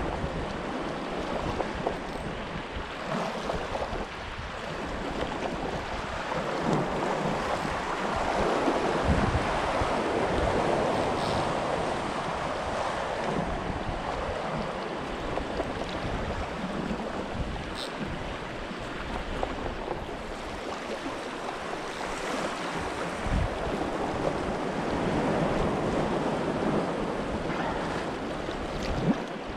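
Small ocean waves washing and lapping around a wading angler, rising and falling, with wind buffeting the microphone.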